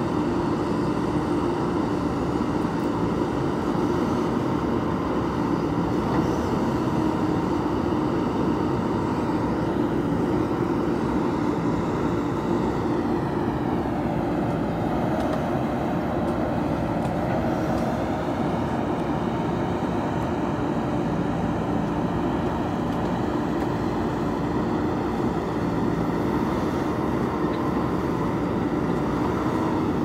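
JCB backhoe loader's diesel engine running steadily under load as its backhoe arm digs soil and swings it into a tipper truck; the engine note dips and comes back up about halfway through.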